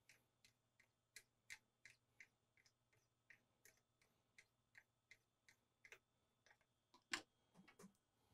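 Faint clicking from the HP 432A's coarse zero control being turned all the way up by hand, about three clicks a second at uneven spacing, with a louder knock about seven seconds in.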